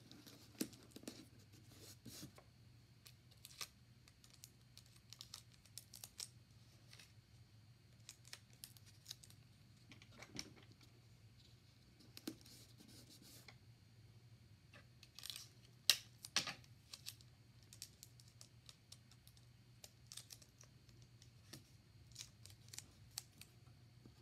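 Faint scattered rustles and clicks of paper strips and sticky tape being handled and pressed onto paper, with a few louder crackles about ten seconds in and again around fifteen to sixteen seconds.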